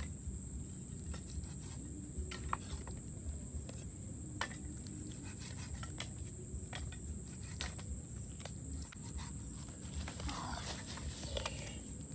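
Knife cutting raw pork on a wooden block: scattered light taps and clicks at an irregular pace, over a steady low background noise and a steady high hiss.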